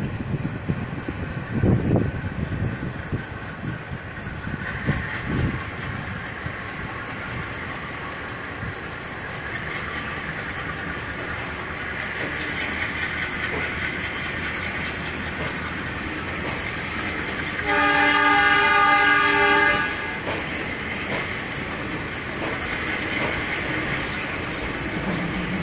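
A departing passenger train rumbling and clattering on the rails, with a few low thumps in the first two seconds. About two-thirds of the way through, its horn sounds once for about two seconds.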